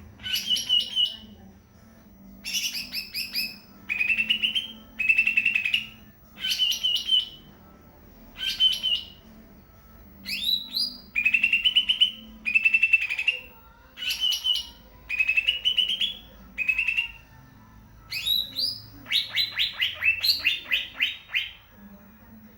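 Cucak ijo (leafbird) singing: short phrases of quick, high notes repeated every second or two, with a longer, faster run of notes near the end.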